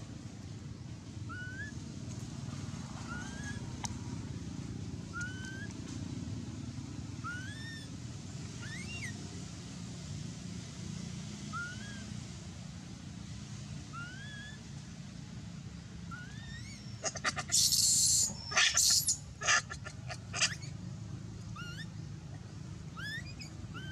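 Animal calls: a short rising chirp repeated about once a second, over a steady low rumble. About two-thirds through comes a louder burst of harsh, high calls lasting a few seconds.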